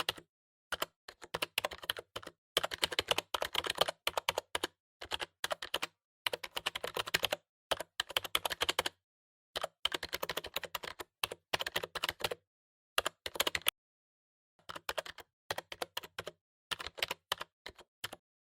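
A computer keyboard being typed on: runs of rapid key clicks, each lasting one to three seconds, broken by short pauses.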